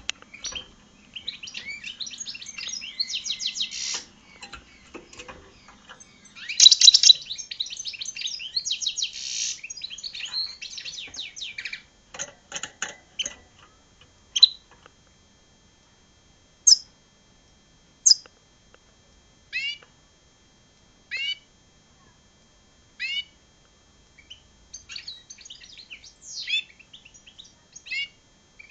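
Goldfinch × red siskin hybrid singing: a fast, high twittering song for the first dozen seconds or so, then single short rising call notes every second or two, with the twittering picking up again near the end.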